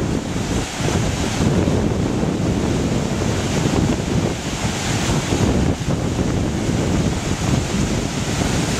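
Steady rushing of river water pouring through an old logging dam's spillway, with wind buffeting the microphone.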